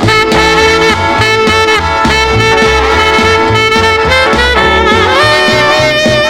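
Instrumental break of a 1957 rock and roll record: horns play a lead line over a steady bass and drums, with no vocals.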